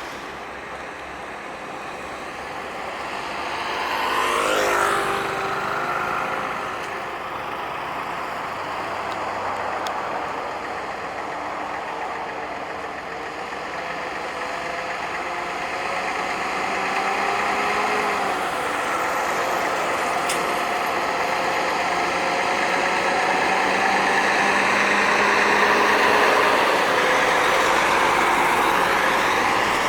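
Heavy trucks driving past on a road, engines running over steady road noise. One goes close by about four to five seconds in, its pitch dropping as it passes, and the sound builds again near the end as another approaches.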